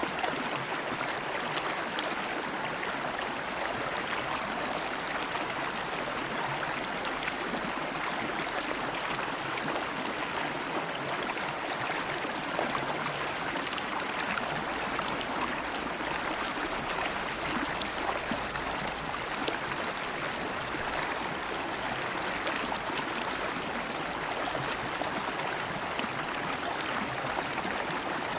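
River water flowing over stones, a steady rushing and burbling with small splashes.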